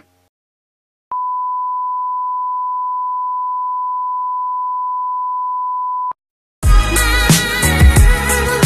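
Steady 1 kHz test tone of a TV colour-bar test pattern, one unbroken beep about five seconds long that cuts off suddenly. Near the end, loud music with a heavy bass beat starts.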